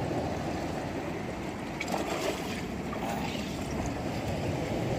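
Steady wash of Gulf surf on the beach with wind on the microphone, and a few faint crackles about two and three seconds in.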